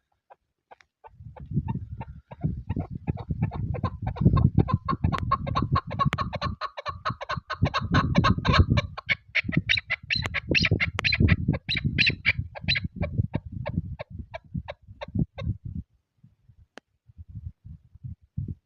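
Chukar partridge calling a long, rapid series of clucking chuck notes that starts about a second in and stops a few seconds before the end, over wind rumbling on the microphone.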